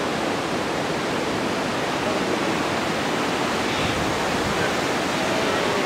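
Merced River rapids rushing steadily over boulders: a loud, even roar of whitewater.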